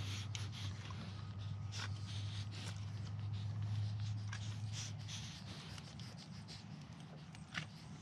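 Goats nosing and mouthing at the camera and the wire fence: scratchy rubbing with scattered light clicks. A steady low hum runs underneath and stops about five seconds in.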